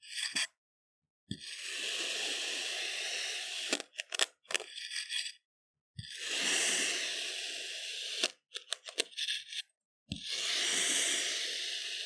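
A stainless steel kitchen knife cutting down through a block of crunchy kinetic sand three times. Each cut starts with a soft knock as the blade meets the sand, goes on as a crunching scrape for about two seconds, and ends in a few sharp crackles.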